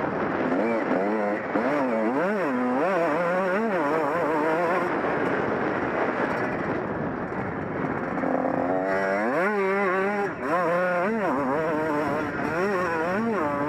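Honda CR125 two-stroke motocross engine revving hard, its pitch rising and falling again and again with throttle and gear changes, most sharply in the second half.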